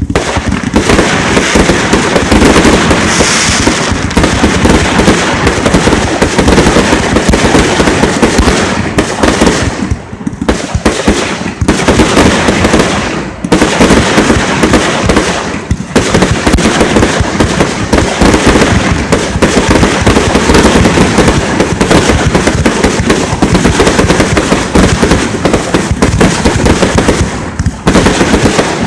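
Fireworks display: a loud, dense barrage of rapid, overlapping bangs, with only a few brief lulls.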